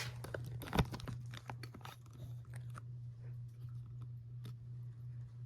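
Westinghouse Apollo Elite ceiling fan running on medium speed with a steady low hum, which the owner puts down to the canopy. Scattered clicks and crackles come over the hum, with a dull thump about a second in.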